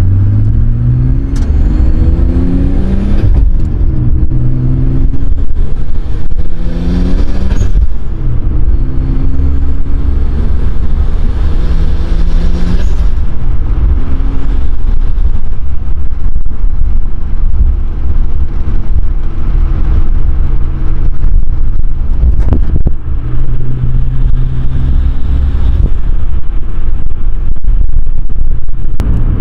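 Nissan Skyline R33's turbocharged RB25DET straight-six accelerating through the gears, heard from inside the cabin. In each gear the engine note and a high turbo whistle rise together, then drop suddenly at the upshift; this happens several times.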